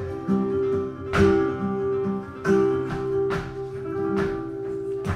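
Flamenco guitar playing soleá por bulería between sung verses: held notes ringing under a few sharp, accented strikes, roughly once a second.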